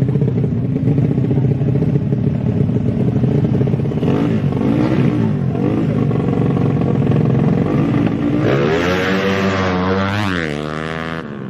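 Small underbone motorcycle engines running with a steady drone, then revving hard over the last three seconds, the pitch swinging up and down several times.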